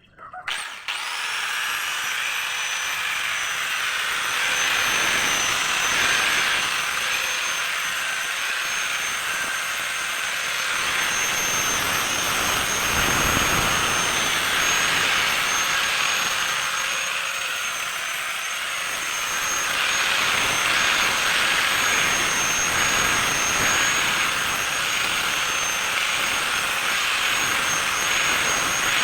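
Electric grinder starting up, its high whine rising over the first second and then running steadily. A hiss that swells and fades in strength runs with it, consistent with a knife blade being ground.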